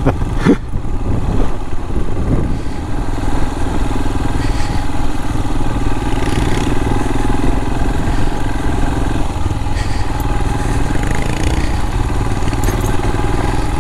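Royal Enfield motorcycle engine running steadily at low speed, heard from the rider's own bike, with wind rushing over the microphone.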